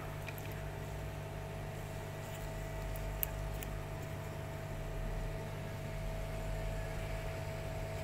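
Steady low electrical hum with a faint higher tone over a background hiss, with a couple of faint ticks about three seconds in.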